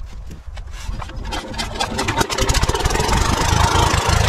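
Single-cylinder 8 hp diesel pumpset engine starting: separate firing knocks come faster about a second in, and the engine picks up speed into a steady run that grows louder over the next two seconds.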